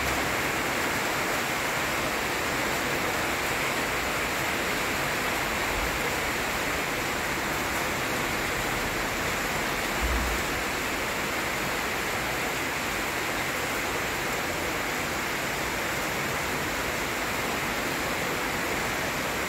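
Steady, even rushing hiss of wind through coconut palms as a rainstorm gathers, with a brief low thump about ten seconds in.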